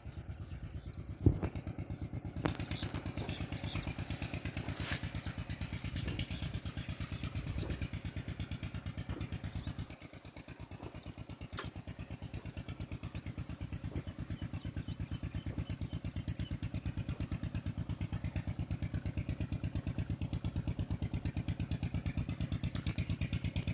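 Tubewell diesel engine running steadily, its even firing pulses heard throughout. A few sharp clicks come in the first few seconds, and the engine sound dips briefly about ten seconds in before steadying again.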